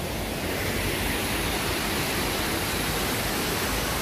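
Steady rush of falling water from a waterfall, getting a little louder and brighter about a second in.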